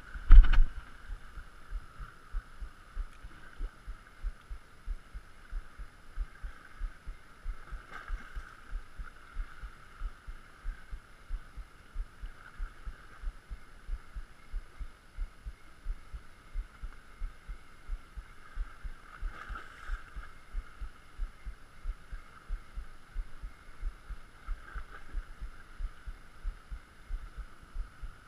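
Spinning reel cranked steadily during a lure retrieve: soft rhythmic thudding about two to three times a second over a steady faint whir. A sudden loud burst comes about half a second in, as the rod is swung in a cast.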